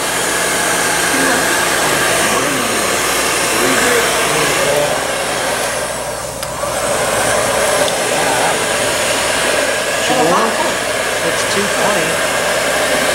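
Heat gun blowing hot air steadily, heating an aluminium crankcase's bearing bore so it expands to take a bearing. The rush dips briefly about six seconds in.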